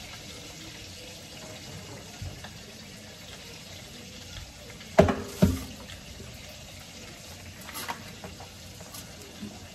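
Steady hiss with two sharp clanks close together about halfway through, and a lighter one after, as a foil-lined metal baking tray of bacon is taken out of the oven and handled.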